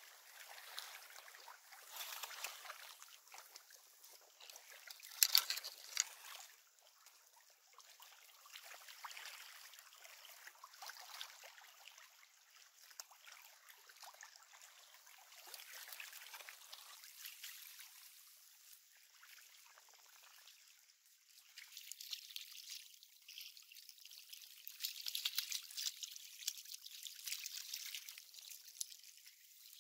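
Small waves lapping and trickling at a stony lakeshore, faint and uneven, with a brief sharper noise about five seconds in. Near the end the splashing gets busier as a hooked perch is pulled thrashing through the shallows.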